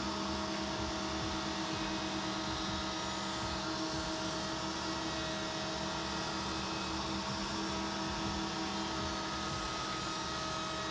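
Table-mounted router running steadily with a constant hum, its bearing-guided flush-trim bit trimming the edge of an MDF panel fed along it.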